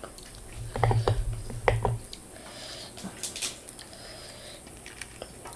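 Close-miked wet mouth sounds of someone eating spicy pani puri: squishy chewing clicks, with a low hum under the clicks about a second in, then fainter scattered clicks.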